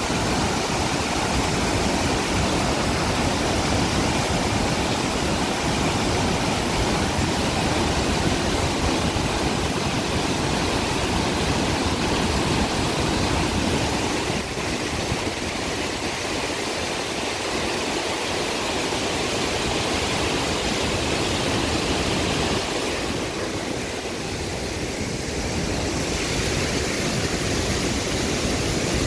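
Steady rush of floodwater pouring through a hydropower dam's open spillway gates into the river below, with a slight change in its texture about halfway through.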